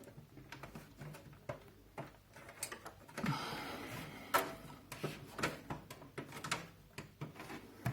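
Plastic front panel of a Zalman Z11 Neo computer case being pried off by hand: irregular clicks and creaks from its tightly stuck retaining clips, with a short scraping stretch about three seconds in.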